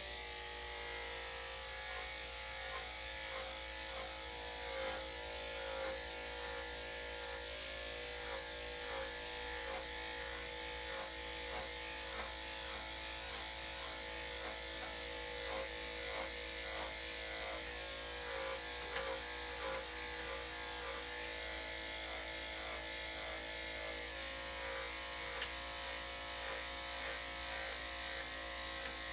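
Electric dog grooming clippers fitted with a #5 blade, running with a steady hum as they shave a dog's thick coat.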